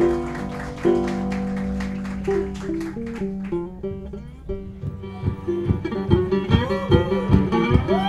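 Acoustic guitar played without singing: ringing chords in the first half, then after a brief lull a new passage of quick, evenly repeated picked notes, several a second.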